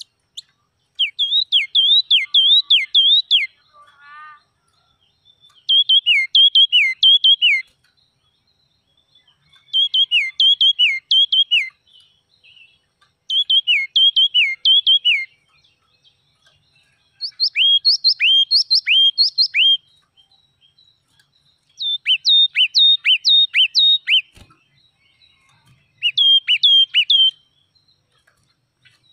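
Yellow-cheeked tit singing: seven bursts of loud, quickly repeated notes, each note slurring sharply downward, with pauses of about two seconds between bursts.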